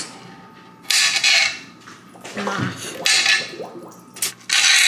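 Knife cutting through asparagus spears on a cutting board: three separate cuts, each a short scraping burst, about a second in, about three seconds in and near the end.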